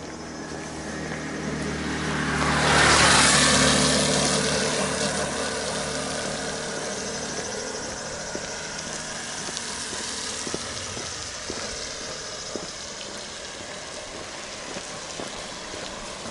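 A motor vehicle drives past on the road, loudest about three seconds in, then slowly fading away. Faint footsteps tick along behind it.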